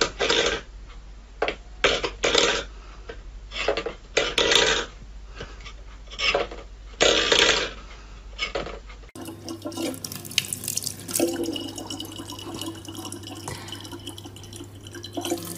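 Water splashing in short irregular bursts, then a tap or shower running steadily with a low hum.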